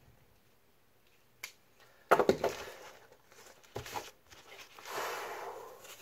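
Cardboard box and its contents being handled: a small click, then a sudden scraping rustle about two seconds in, a brief knock, and a longer soft rustle near the end as a black protective sheet is lifted off the papers inside.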